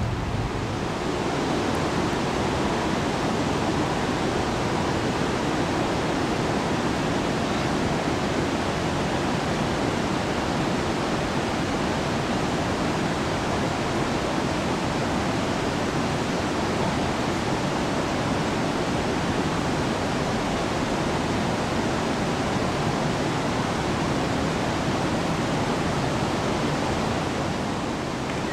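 Water of the Chaudière River falls and rapids rushing in a steady, unbroken wash of noise.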